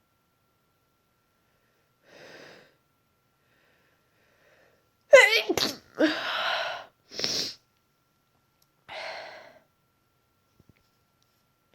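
A woman with a congested head cold sneezing: one loud sneeze about five seconds in, with a sharp pitched onset running into a noisy blast, then a shorter burst. Softer breathy sounds come before and after it.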